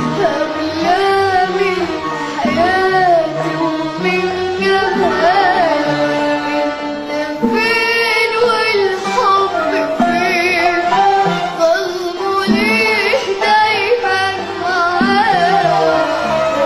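A young girl singing an Arabic song in a high voice with ornamented, wavering melodic runs, over a band's accompaniment.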